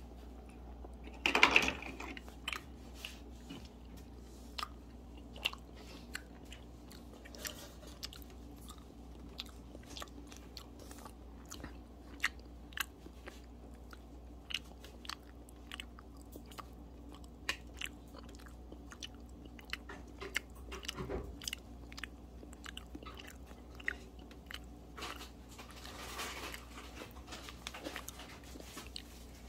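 Small dog biting and chewing on plastic sunglasses: irregular clicks and crunches of teeth on the frames, with a brief louder burst of noise about a second and a half in.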